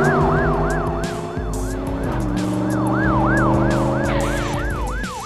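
Ambulance siren sound effect: a fast up-and-down wail, about three sweeps a second, over a lower steady drone that drops in pitch about two seconds in.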